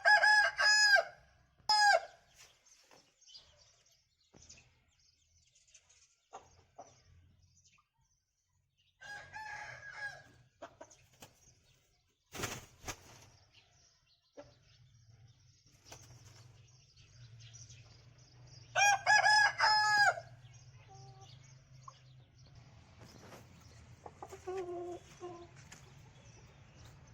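Aseel roosters crowing: loud crows at the start and again about two-thirds of the way through, with fainter, more distant crows between them. A single sharp knock near the middle, and a faint low hum in the second half.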